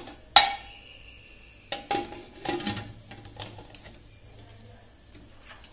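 Metal lid of a Prestige Deluxe pressure cooker being set on the pot and closed, with a sharp clank that rings briefly about half a second in, then a few more knocks and small ticks as it is fitted.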